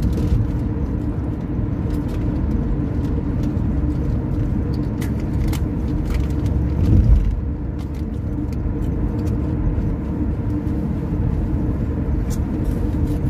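Steady road and engine noise heard from inside a moving car's cabin: a low rumble with a faint hum, swelling briefly about seven seconds in.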